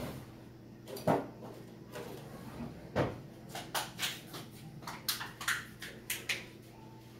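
Plastic handling noise from an RC car's radio transmitter as its battery compartment is opened and AAA batteries are fitted. A few knocks come in the first three seconds, then a quick run of sharp clicks and taps.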